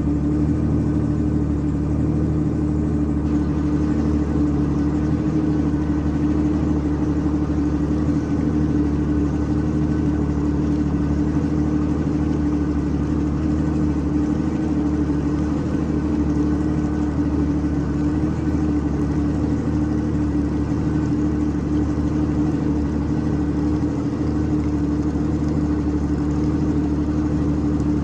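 Yamaha WaveRunner personal watercraft engine running at steady cruising speed, a constant drone with a strong hum that neither rises nor falls.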